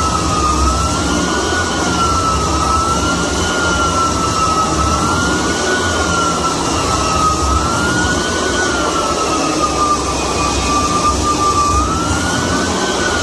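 Super 7R floor edger sanding hardwood flooring along the baseboard: a steady, loud motor whine that wavers slowly up and down in pitch, over the grinding hiss of the sanding disc.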